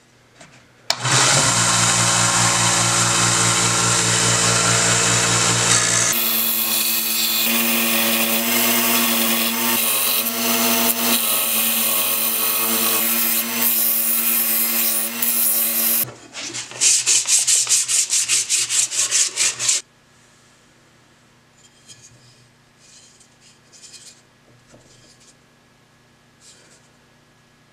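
Small vertical bench belt sander running while a purpleheart wood hammer handle is sanded against the belt. The machine's tone changes about six seconds in. Near the sixteenth second the sound breaks into a quick run of pulses as the wood is pressed on and off the belt, then cuts off abruptly. Faint scraping of the wood follows.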